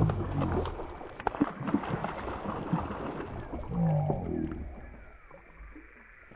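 A man's wordless grunts and groans while fighting a hooked smallmouth bass, once at the start and again about four seconds in. Under them the fish splashes at the surface as it jumps, and there is a sharp click about a second in.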